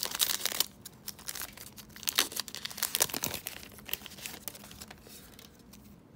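Foil trading-card booster pack being torn open and crinkled in the hands: irregular crackling, loudest in the first second, then sparser and fainter.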